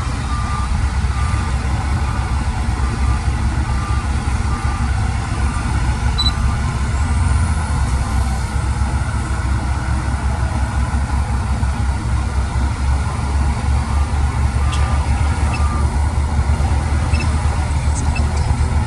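Heavy diesel construction machine running steadily with a deep, fast-pulsing engine rumble, its reversing alarm beeping at a regular pace until it stops a few seconds before the end.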